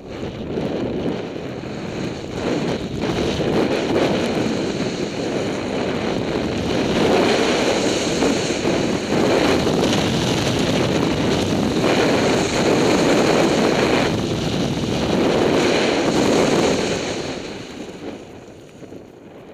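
Wind rushing over a skier's camera microphone during a downhill run, mixed with the hiss of skis on snow. It swells and eases several times and dies down near the end as the skier slows to a stop.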